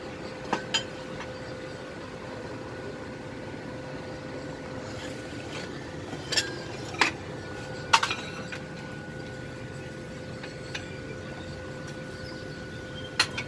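A handful of short, sharp metallic clinks and taps, scattered and irregular, as a welded steel swing arm and hand tools are handled, over a steady faint hum.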